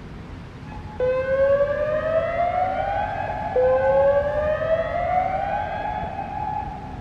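Hörmann/ASC ECN1200 electronic warning siren sounding a whoop tone on test. Two rising sweeps start suddenly about a second in and about three and a half seconds in. Each climbs over roughly two seconds and then holds its top pitch, and the sound fades out near the end.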